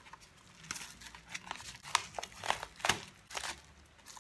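A padded mailing envelope being opened by hand and its plastic-wrapped contents handled: irregular crinkling and crackling.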